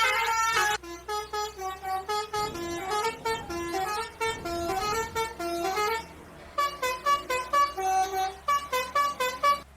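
Bus basuri musical horn: a loud held chord at the start, then a quieter tune of short notes stepping up and down, about three or four a second, with a brief pause about six seconds in.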